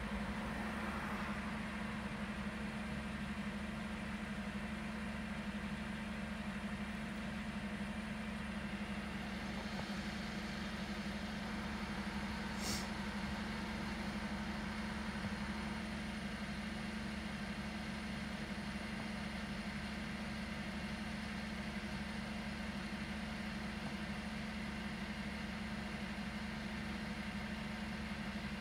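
Veolia refuse collection truck's diesel engine idling steadily with a low, even drone. About twelve seconds in there is one brief high-pitched chirp.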